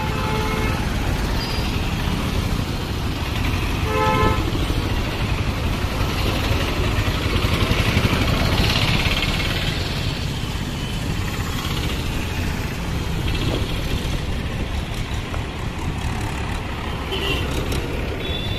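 Street traffic of passing auto-rickshaws and motorcycles, with engines running and a steady rumble of tyre noise that swells as vehicles go by. A vehicle horn sounds in the first second and again briefly about four seconds in.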